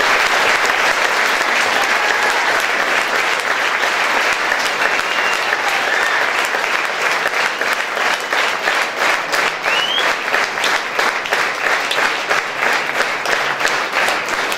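Sustained applause from the audience and the costumed dancers on stage. It is a dense, steady clapping that stays loud throughout, with individual claps standing out more in the second half.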